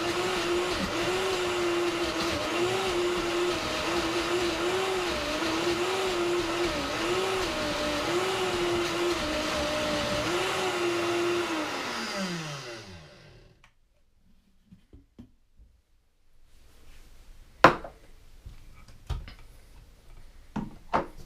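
Vitamix S55 personal blender motor running at high speed through thick frozen mixed berries, its pitch dipping and recovering about once a second. About twelve seconds in it is switched off and winds down with a falling pitch. A few seconds later come several sharp clicks and knocks.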